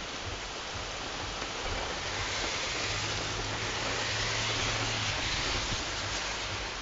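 Heavy storm rain falling steadily, a constant hiss that swells a little in the middle. A low steady hum sits underneath for a few seconds in the middle.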